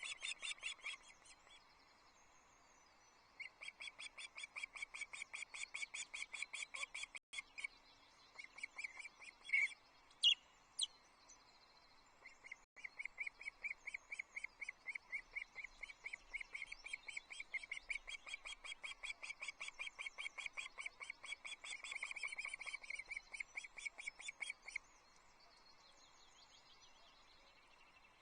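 Osprey calling: long runs of high, thin chirps at about four a second, in two main bouts, with a couple of sharper, louder whistled notes between them.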